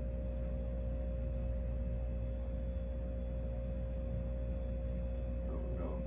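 Fasco Parlour Fan ceiling fan's stack motor running: a steady low hum with one steady higher tone over it and the soft rush of the spinning blades. The bearings and bushing make no noise.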